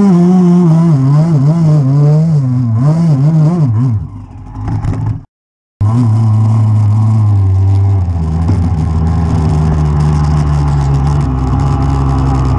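Dirt bike engine heard from on the bike, revving up and down in quick swells while climbing a rough trail. It cuts out for half a second, then runs steadily at speed and drops in pitch about 8 seconds in.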